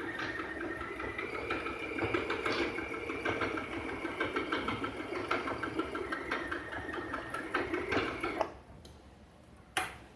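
FHSM-702 sewing machine running and stitching with a fast, even rhythm, stopping about eight and a half seconds in. A single sharp click follows shortly before the end.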